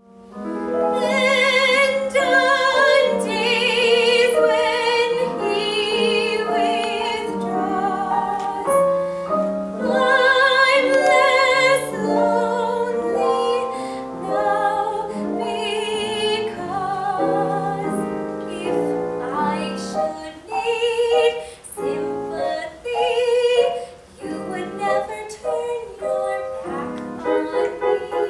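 A woman singing a musical-theatre song in a trained voice with vibrato, accompanied by piano.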